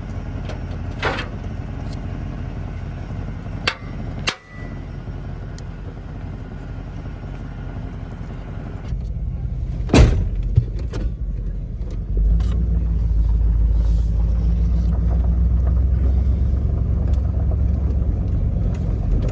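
Pickup truck running, a steady low rumble with a few knocks, one loud knock about halfway through; about two-thirds of the way in the rumble grows louder as the truck pulls away.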